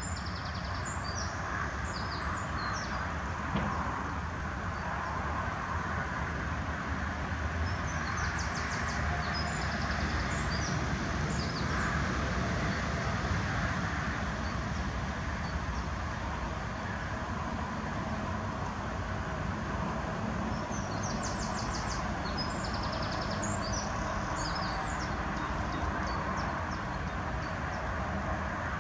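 Outdoor ambience: a steady low rumble with a small songbird singing in spells of rapid high trills and chirps, near the start, about eight seconds in, and again about three-quarters of the way through.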